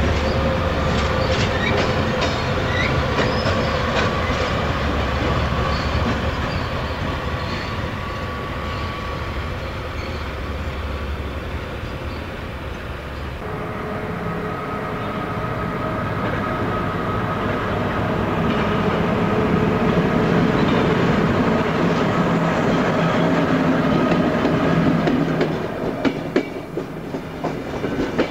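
Passenger trains moving through a station. First a train's steady running rumble with a held tone. Then a locomotive-hauled train grows louder as it runs in close, and near the end its wheels click quickly and regularly over rail joints.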